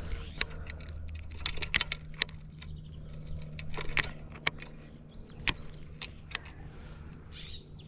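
Irregular light clicks and rattles of fishing gear being handled, over a low steady hum.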